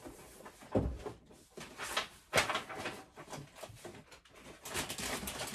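Someone rummaging through craft supplies: a thump about a second in, a sharper knock a little before the middle, and rustling and clatter in between and near the end.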